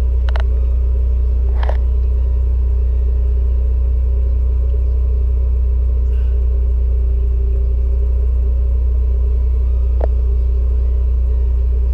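Steady, loud low hum, with a few short faint clicks.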